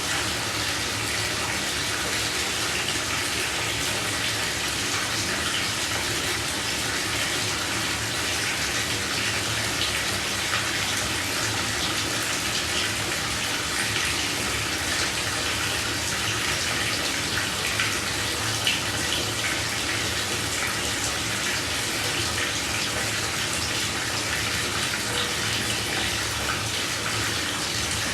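Shower water running steadily, a continuous hiss of spray falling, with a few slightly louder splashes.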